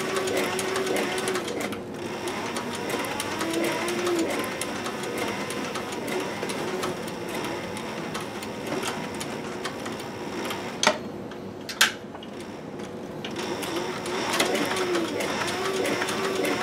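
Industrial leather sewing machine stitching a holster: fast, even needle strokes over a steady motor hum. It eases off for a couple of seconds about eleven seconds in, where two sharp clicks sound, then runs again.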